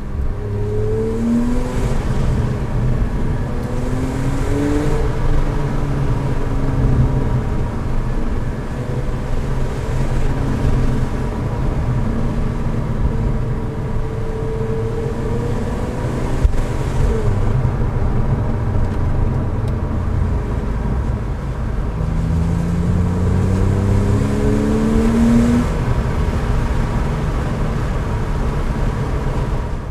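Porsche 911 Carrera 4S (997.2) 3.8-litre flat-six with sport exhaust, heard from inside the cabin over steady road noise. Its pitch rises in several pulls through the gears, the longest near the end.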